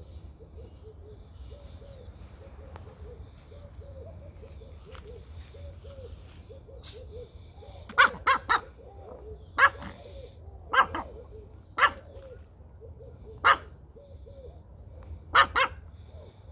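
Small dogs, Pomeranians, giving sharp, high yapping barks from about halfway on, about nine in all, some in quick pairs and triplets. Under them runs a soft low call repeated several times a second.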